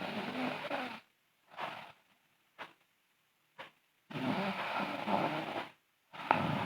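A sleeping girl snoring loudly: a long rattling snore of about a second at the start and another of about a second and a half about four seconds in, with soft short breaths between them. A shorter snore with a brief whistle comes near the end.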